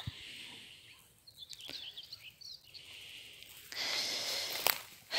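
Birds singing in the open, a few thin chirps in the middle. Near the end a louder stretch of rustling noise comes in.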